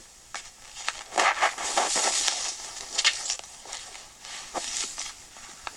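Irregular rustling and scraping with a few sharp clicks, loudest in the first half.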